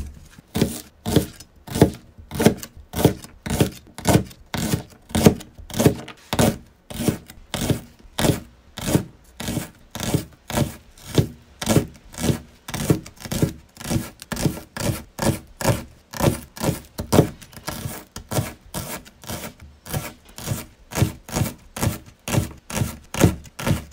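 Kitchen knife slicing a green onion on a TPU cutting board, a mix of soft rubber and hard plastic: an even run of knife strokes, about two a second, each blade hitting the board.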